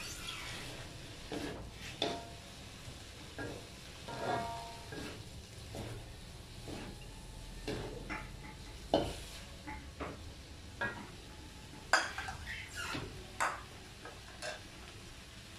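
Wooden spatula stirring and scraping okra in a wok, with irregular knocks against the pan over a low sizzle of frying. The sharpest knocks come about 2, 9 and 12 seconds in.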